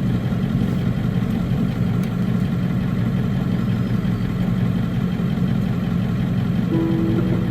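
Ford E350 van's 7.3 Powerstroke V8 turbodiesel running steadily on the road, a low, even drone. A short tone sounds near the end.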